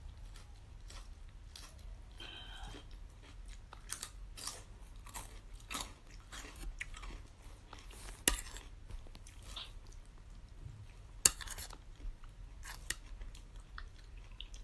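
Close-up crunching and chewing of a raw sawi (mustard green) leaf, with a few sharp clicks among the crackles.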